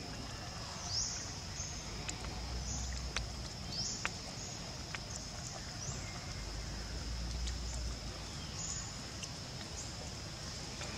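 Tropical forest ambience: a steady high-pitched insect drone, with short rising chirps every second or two and low wind rumble on the microphone.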